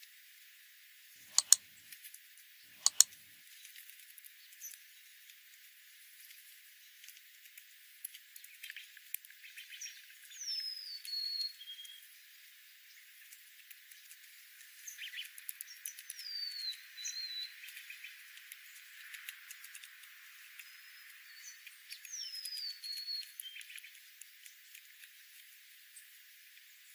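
Small birds calling: a clear whistled note sliding down in pitch, repeated three times about six seconds apart, among soft chirps and light ticking. Two sharp clicks sound near the start.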